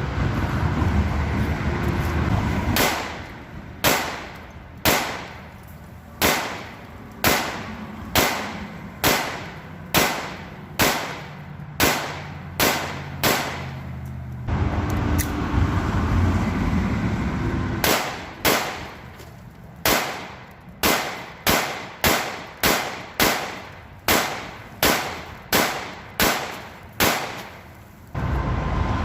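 Glock 19 9mm pistol firing: a string of about a dozen shots roughly one a second, a pause of a few seconds, then a quicker string of about fifteen shots, over a low steady background rumble.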